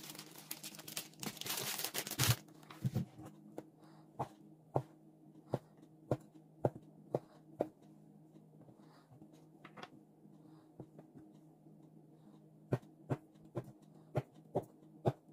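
A plastic hot dog package crinkling as it is torn open, then a knife slicing hot dogs and tapping on a wooden cutting board in short runs of sharp taps, about two a second. A faint steady hum runs underneath.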